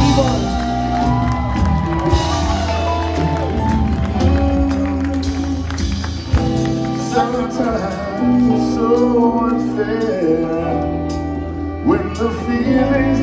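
A live band playing with singing: drums, bass, electric guitars, violin and keyboards, heard from among the audience.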